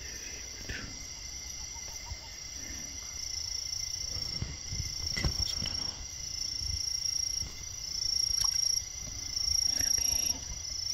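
Insects trilling, crickets or similar, a steady high-pitched chorus. A louder buzz swells in and stops for about a second at a time, several times in the second half, with a few faint knocks underneath.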